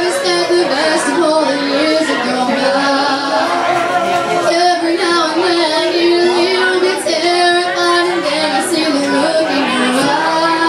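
A woman singing into a microphone over a karaoke backing track, amplified through a PA, with long held notes.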